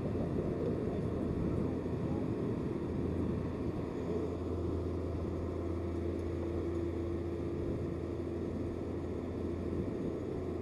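Steady low engine rumble with a faint hum over it, swelling in the middle and easing off near the end.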